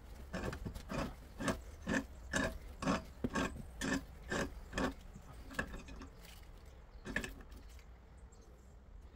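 Rhythmic clicks from a hand tool working on the fittings at the base of a steel gas riser, about two a second, thinning to a few scattered clicks after about five seconds.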